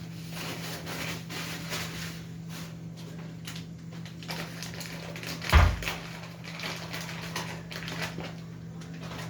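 Kitchen handling sounds as cheese is torn up and added to the stroganoff pan: soft rustles and small clicks over a steady low hum, with one loud thump about five and a half seconds in.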